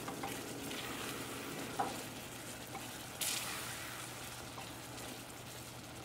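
Strawberry jam mixture of strawberries, butter, sugar and orange juice simmering and sizzling on low heat in a stainless steel saucepan as it cooks down. There is a steady bubbling hiss, with a faint click about two seconds in and a brief louder hiss about three seconds in that fades.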